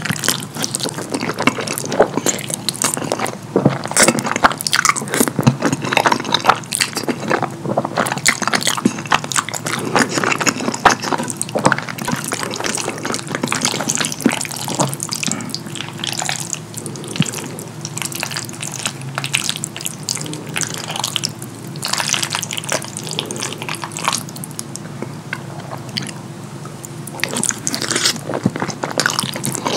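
Close-miked chewing and slurping of sauce-coated fettuccine, with many quick wet mouth clicks and smacks.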